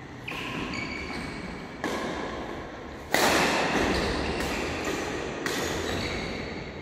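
Badminton rally: about five sharp racket hits on the shuttlecock, one every second and a half or so, each ringing on in the echo of a large hall; the loudest comes about three seconds in.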